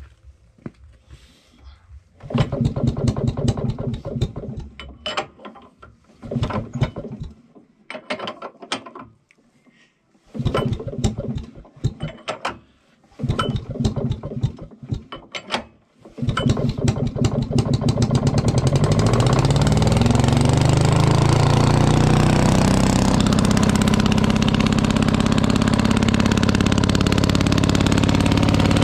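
Willys 32-volt light plant's two-stroke engine being started: it fires in several short bursts of rapid strokes that die out, then catches about sixteen seconds in, speeds up and settles into a steady run.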